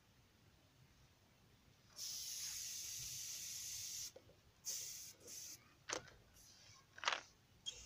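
Compressed air hissing at a car tyre's valve stem from an air hose chuck: a steady hiss for about two seconds, then short spurts of hiss and a couple of sharp clicks as the chuck is worked on the valve.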